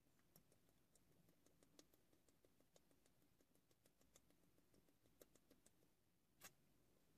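Near silence, with faint gulping clicks, a few a second, as a man swallows malt liquor straight from a 40 oz glass bottle. One louder click about six and a half seconds in.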